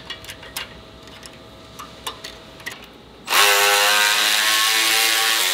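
Light clicks and clinks of metal parts being handled, then about three seconds in a cordless power ratchet starts and runs steadily, driving a bolt.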